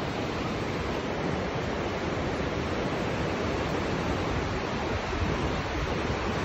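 Steady rushing noise of the river flowing through the canyon below, mixed with wind gusting on the microphone.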